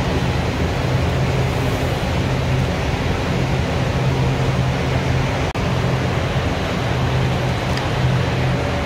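Spray booth's ventilation running: a steady rush of air with a low hum underneath.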